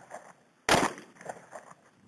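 A single shot from a compact semi-automatic pistol, about two-thirds of a second in, followed by a fading echo.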